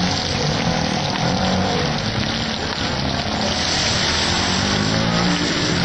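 Masala-coated whole fish deep-frying in hot oil in a wide pan, a steady dense sizzle, with a low motor hum underneath.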